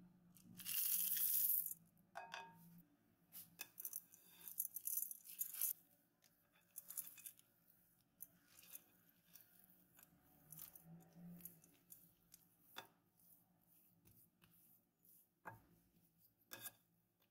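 Chocolate chips tipped into cookie dough in a glass bowl, a loud rattling rush lasting about a second near the start. After that a spatula folds the dough, with irregular soft scrapes and light ticks against the glass.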